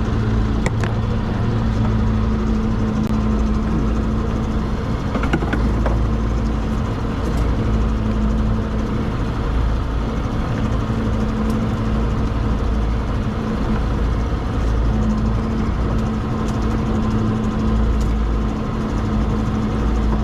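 Engine of a small fishing boat running steadily at an even pitch. A few faint clicks and knocks come through over it.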